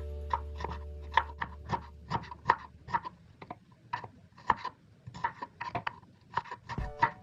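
A kitchen knife chopping ginger and kencur (aromatic ginger) root on a cutting board: irregular sharp knocks of the blade, about three a second.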